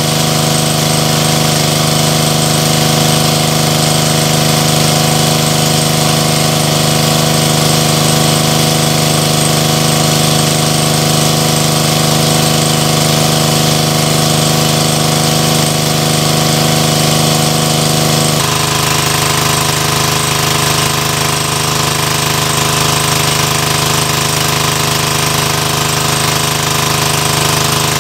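Small petrol engine of a portable water pump running steadily, with water gushing from its discharge hose as it pumps the pond out. About two-thirds through, the engine's note changes abruptly.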